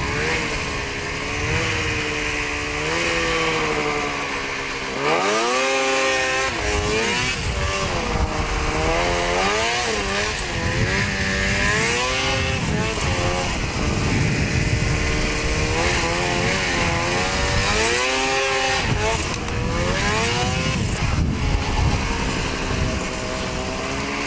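Ski-Doo snowmobile engine running under way, its revs rising and falling again and again as the throttle is opened and eased, with a sharp climb about five seconds in.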